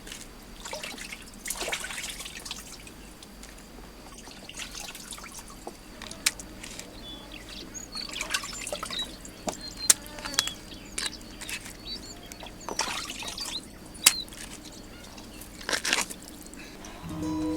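Water splashing and dripping in irregular bursts, with sharp clicks now and then, as when something is rinsed or handled in water.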